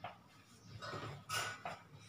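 Marker pen squeaking and scratching on a whiteboard as a word is written, in a few short strokes, the loudest about halfway through.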